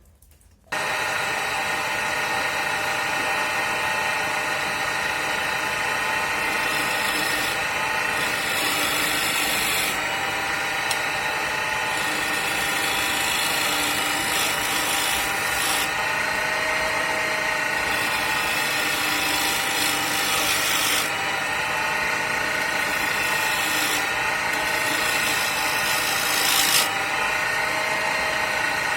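Homemade wood lathe running with a steady motor whine while a turning chisel cuts into the spinning wood blank, the scraping of the cut changing every few seconds. The sound starts suddenly about a second in.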